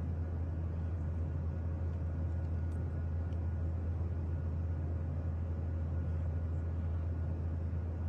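A steady low hum with an even background hiss, unchanging throughout, with no distinct gulps or other events standing out.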